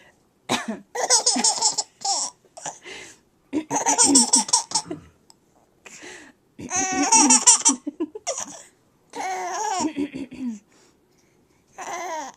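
A baby laughing in about five separate fits of breathy giggles, a couple of seconds apart.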